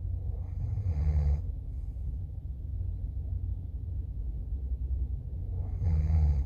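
A steady low rumble, with two breath-like sounds about five seconds apart, one about a second in and one near the end.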